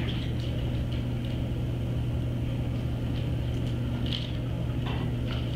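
Steady low room hum with a constant higher hiss above it, and a few faint clicks near the end.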